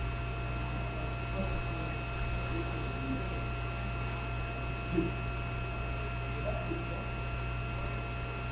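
A steady hum with a faint high whine held at a constant pitch over a low rumble, and a single short knock about five seconds in.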